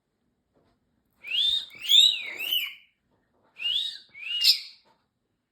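Parrotlet whistling: two phrases of rising-and-falling whistled notes, three notes about a second in, then two more about a second later.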